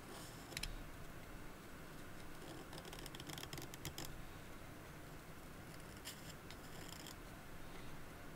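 Knife blade shaving wood from a pencil by hand, in short scraping cuts. The cuts come in bunches: once about half a second in, a run of strokes around three to four seconds, and another around six to seven seconds, with pauses between.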